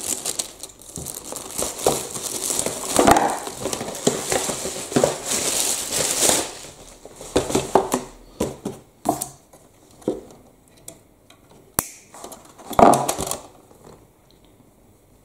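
Clear plastic shrink-wrap crinkling and crackling as it is cut with scissors and pulled off a toy's cardboard box, followed by scattered clicks and short rustles as the wrapping and scissors are handled; it goes quieter near the end.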